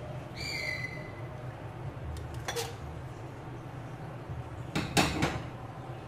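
Metal kitchenware clinking: steel cookie cutters and a stainless steel bowl knocked together on the counter. There is a single clink with a short ring, then a louder clatter of several knocks about five seconds in.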